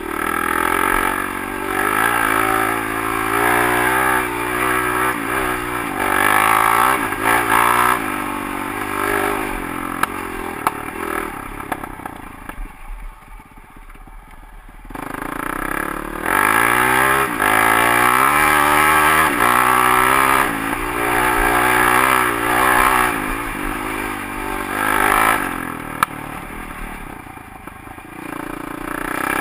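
Honda CRF450X single-cylinder four-stroke dirt bike engine pulling under load, its revs climbing and falling as the throttle opens and closes. Around halfway it drops off to a quiet near-idle for a few seconds, then the revs climb again. It eases off once more shortly before the end.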